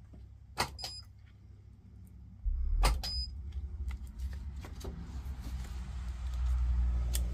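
Battery-tab spot welder firing onto the nickel strips of 18650-type lithium-ion cells: sharp snaps in quick pairs, about a second in and again about three seconds in, each with a short high beep. From about two and a half seconds a low rumble sets in and becomes the loudest sound.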